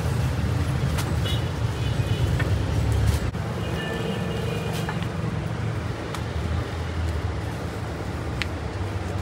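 A steady low rumble with faint music underneath and a few light clicks scattered through.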